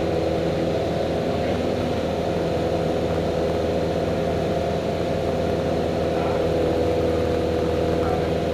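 A single-engine light aircraft's engine and propeller running steadily in flight, heard inside the cockpit as an even, unchanging drone.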